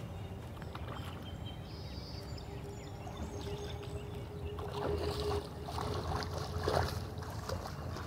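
Water splashing and sloshing as a hooked catfish thrashes at the surface close to the bank, loudest in the second half.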